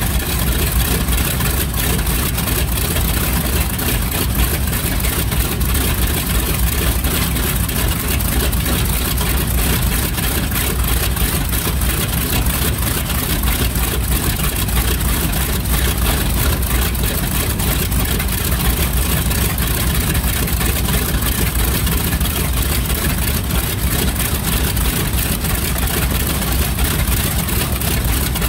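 PBJ-1J (B-25J) Mitchell's Wright R-2600 twin-row radial engine idling steadily with its propeller turning, a dense, even low rumble.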